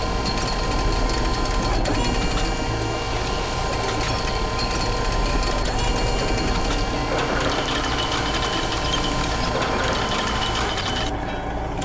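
Steady machine running sound, like a construction vehicle's engine: a constant low rumble with many steady tones on top. The high end drops out for a moment near the end.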